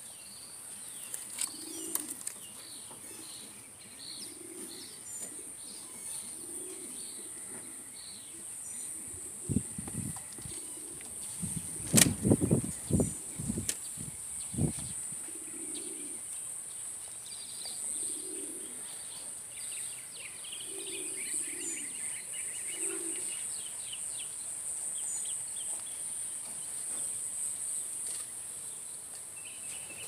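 Racing pigeons cooing low, a call every second or two, with a burst of loud wing flapping about halfway through. Small birds chirp faintly in the background.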